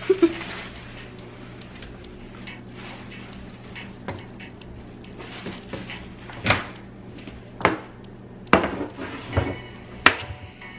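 Knocks and clunks of household items being handled and set down inside the cabinet under a kitchen sink. Two sharp taps come right at the start, then a run of separate knocks from about six seconds in, over a low steady hum.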